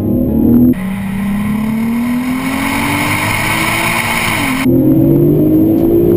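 Turbocharged VR6 of a tuned VW Golf R32 under hard acceleration. Its note rises steadily in pitch, then dips twice as the DSG gearbox shifts up, once past the middle and again near the end.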